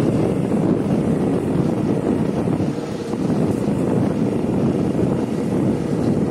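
Motorcycle on the move: a steady engine and road noise with wind buffeting the microphone.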